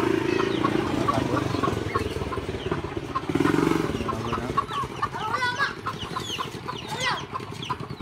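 Several caged birds chirping and twittering in short falling notes, over a low, pulsing drone that is loudest in the first half and fades after about four seconds.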